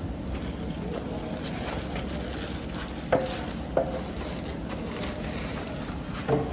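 Plastic wrapping sheet rustling and crinkling as it is handled and pulled off a flat-screen TV, with three short sharp knocks about three, four and six seconds in, the last the loudest.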